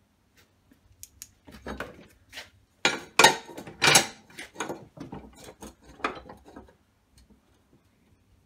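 Metal clanks and clicks as a square metal tube is set into a portable metal-cutting bandsaw's vise and the vise is clamped up, loudest a little after three and at about four seconds in. The saw's motor is not running.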